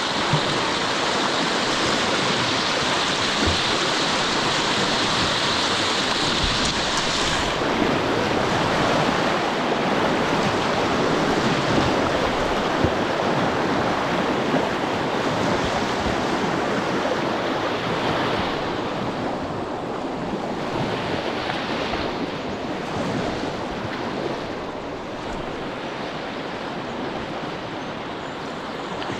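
Rushing white water of a shallow river rapid's surfable wave, a steady noisy rush. The hiss grows duller about seven seconds in and the rush eases a little past the middle.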